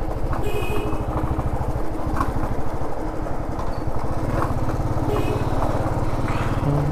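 Motorcycle engine running at low road speed, a steady low, evenly pulsing exhaust beat. Two short high chirps sound about half a second and about five seconds in.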